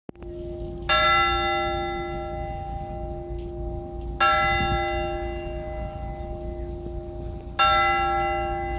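Russian Orthodox church bells ringing: one bell struck three times at slow, even intervals, each stroke ringing out and slowly fading, over a steady lower bell tone that sounds throughout.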